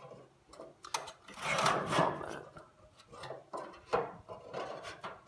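A new stainless steel burner tube scraping and knocking against the steel firebox of a Char-Broil gas grill as it is worked into place. A longer scrape comes about a second in, with sharp clicks near the start and about four seconds in, and shorter rubs in between.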